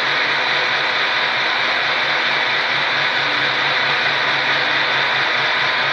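Milling machine running with its end mill cutting a channel into a metal generator rotor: a steady, even cutting noise over a faint motor hum.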